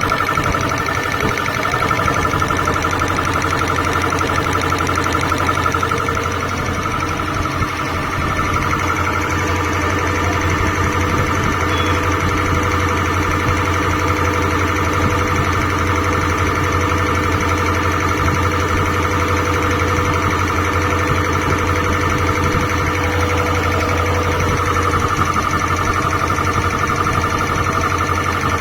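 2 hp twin-piston air compressor running steadily: a fast, even pumping with a low hum and a steady high whine on top.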